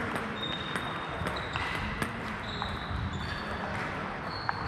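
Scattered sharp clicks of table tennis balls bouncing on tables and floor, with a few short high squeaks over the steady noise of the hall.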